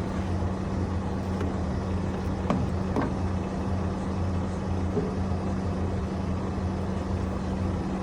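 A steady low engine-like drone from running machinery nearby, with a few faint knocks as the metal filter assembly is lowered into the hydraulic tank and seated over its cup.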